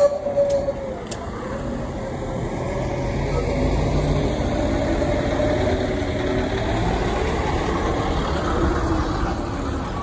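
Blue Bird All American rear-engine CNG school bus pulling away and driving off, its engine running under load as it moves off. A steady whine rides over the engine, dipping in pitch early on and climbing again later.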